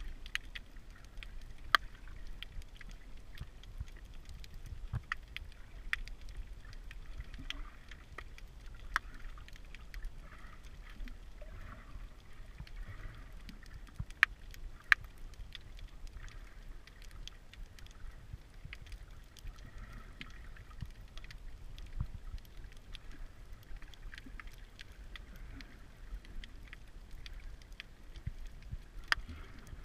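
Underwater ambience heard while snorkeling: a steady low rumble of moving water with scattered sharp clicks and crackles.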